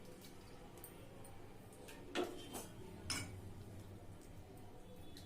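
Kitchen utensils clinking against a pot or bowl: two sharp clinks about a second apart, with a few fainter taps.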